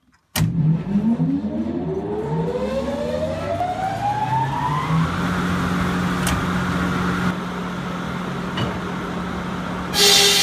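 The switch for a farm sawmill's electric motor clicks on, and the motor and saw spin up to speed with a whine that rises over about five seconds, then settles into a steady hum. Near the end a louder, noisier sound of the sawmill at work takes over.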